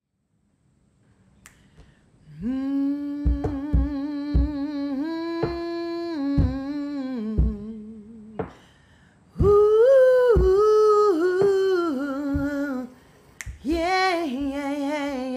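A single voice humming a slow, wordless melody unaccompanied, with sharp finger snaps about once a second keeping time. The voice comes in a couple of seconds in, pauses briefly in the middle, then returns on a louder, higher phrase.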